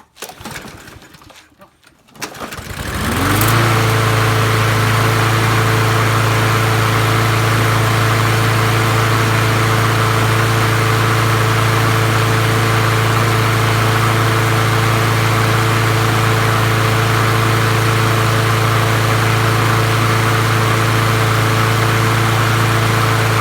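Yardworks 7.25 HP push lawnmower engine being pull-started: a first pull that doesn't catch, then it catches on the second pull about three seconds in and quickly rises to a steady, even run. Right at the end it begins to wind down as it is shut off.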